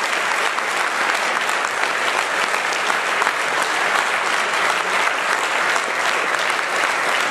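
A room audience applauding steadily: dense, continuous clapping with no let-up.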